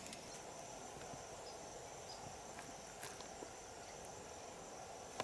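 Faint steady insect chorus, a high thin trill, with a few faint clicks.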